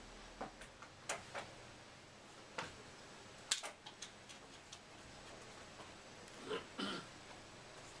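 Faint room tone broken by about a dozen light, irregular clicks and knocks from a handheld camera being moved, the sharpest about three and a half seconds in and a slightly longer pair near the end.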